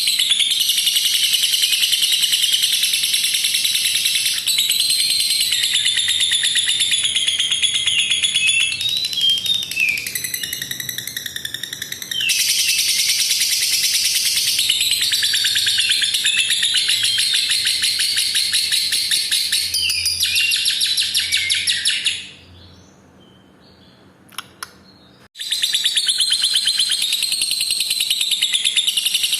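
Lovebird singing its long 'ngekek' song: a continuous, very fast, high-pitched chattering trill held for many seconds at a time. It breaks off about 22 seconds in for some three seconds, with a couple of faint clicks, then starts again.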